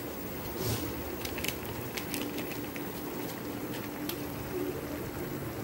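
Thin tomato and onion sambar base boiling in a nonstick frying pan: a steady bubbling with a few small pops.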